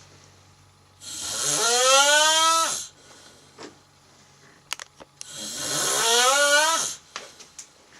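A cat snoring: two long pitched snores about four seconds apart, each a tone with a hiss that swells and fades over nearly two seconds. A few faint clicks fall between them.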